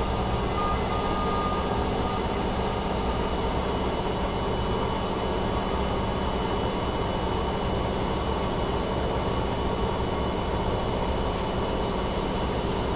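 Bosch front-loading washing machine spinning steadily at 1000 rpm, a constant whirring hum of drum and motor at full spin speed.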